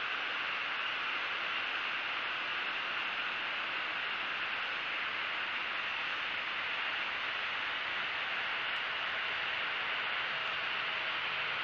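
Steady, even hiss with nothing standing out: the background noise of the outdoor nest-cam microphone.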